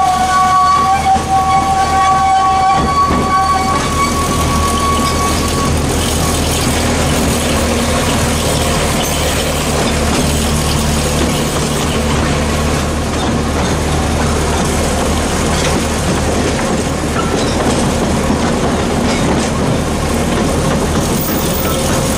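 Narrow-gauge diesel locomotive running steadily as it hauls the train, with the carriage rumbling along the track. A couple of sustained high tones sound at the start and stop within the first few seconds.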